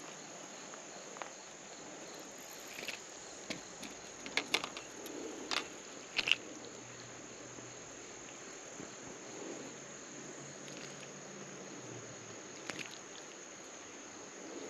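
Steady high-pitched drone of insects, with a few brief clicks and knocks about four to six seconds in.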